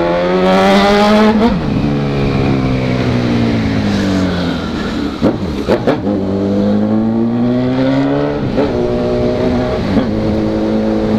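Honda CB1000R's inline-four engine pulling hard with a rising pitch, shifting up about one and a half seconds in, then easing off with the pitch falling. A few sharp cracks come around the middle, then it pulls again with another shift about eight and a half seconds in and settles to a steady run.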